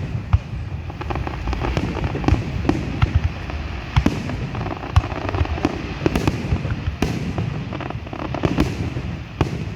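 Fireworks going off: a continuous run of booms and sharp bangs, irregular and overlapping, over a steady low rumble.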